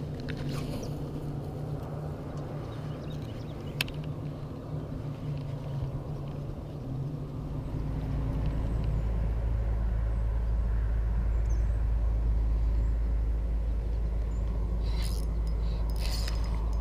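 Steady low hum of a boat motor. About eight seconds in, a louder, deeper rumble takes over. There is one sharp click about four seconds in, and a few brief scraping rustles near the end.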